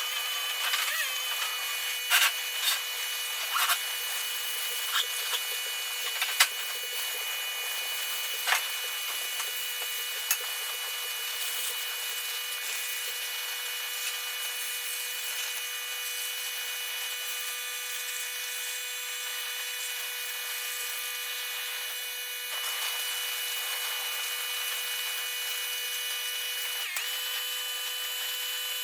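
Electric pressure washer running with a steady motor whine, a few sharp knocks in the first ten seconds, and a brief dip in the whine near the end.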